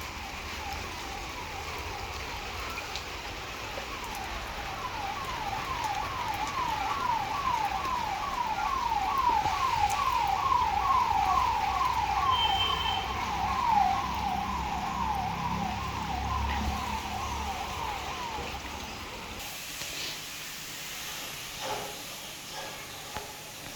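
A siren with a fast, repeating rising wail, about two sweeps a second. It grows louder toward the middle, then fades and stops near the end.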